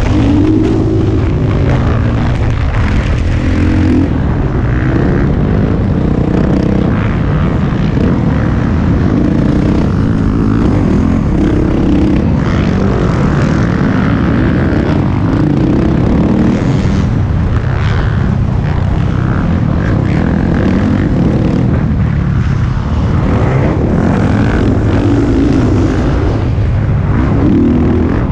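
Dirt bike engine revving hard and backing off again and again as the rider accelerates, shifts and slows around the track, heard up close from the riding bike. Wind buffets the microphone.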